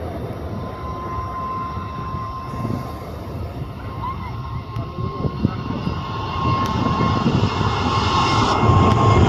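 Jet airliner engines with a steady whine over a low rumble, the rumble growing louder toward the end.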